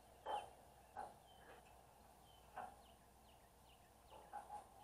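Faint outdoor quiet with scattered bird chirps and a few soft, short knocks.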